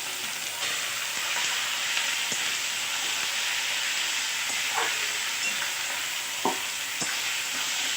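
Marinated chicken pieces sizzling in hot oil in a frying pan with onions, being stirred. The sizzle gets louder about half a second in, and the stirring gives a few short clicks against the pan.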